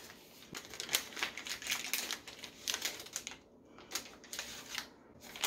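Brown wrapping paper crinkling and tearing as a gift is torn open by hand: quick runs of crackles with a short lull about three and a half seconds in.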